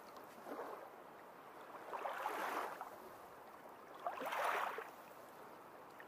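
Shallow water sloshing and lapping in three short swells, about two seconds apart, over a faint steady hiss.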